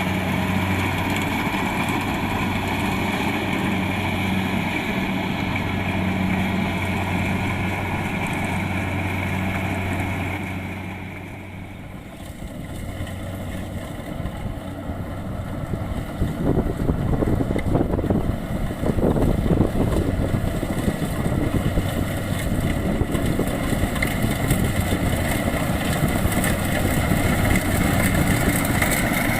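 Kubota DC-70 Plus rice combine harvester's diesel engine running steadily under load. About twelve seconds in the sound dips, then comes back as a rougher, noisier rumble with irregular crackling, and the steady engine hum returns near the end.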